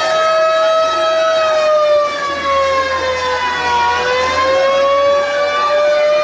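Ship's horn sounding one long unbroken blast, its pitch sagging slowly about two-thirds of the way through and climbing back.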